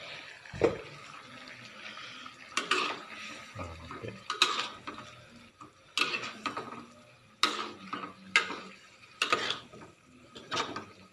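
Metal spatula clanking and scraping against a metal wok while stirring pieces of fish in liquid: a sharp clank every second or so, with a heavier knock about half a second in.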